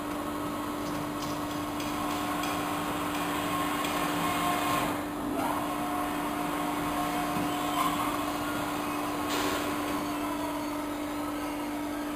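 Evashred Panther industrial shredder running with its force-feed hopper, a steady machinery hum as a foam bale is fed into the cutters. The sound briefly dips and shifts about five seconds in.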